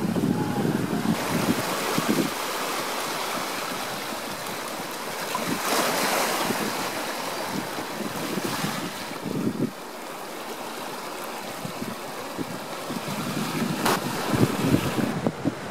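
Sea surf and wind: a steady rushing hiss that swells and eases in waves, with wind buffeting the microphone.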